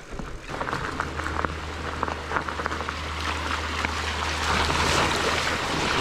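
Mountain bike rolling fast down a rough dirt trail: a steady low rumble of wind and tyre noise that starts about half a second in, with a rushing hiss that grows louder toward the end, and frequent clicks and rattles from the bike over bumps.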